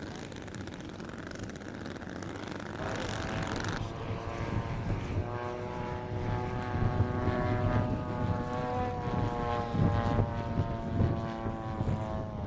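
Zenoah 22cc petrol engines of a large-scale model airliner running as it taxis. After a cut, heard at close range, an engine runs with a steady, even-pitched note.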